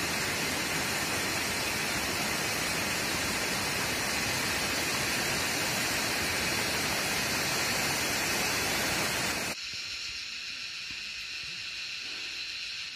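Rocky forest stream rushing over stones, a steady hiss of running water. About nine and a half seconds in it cuts off suddenly to a quieter, steady background hiss.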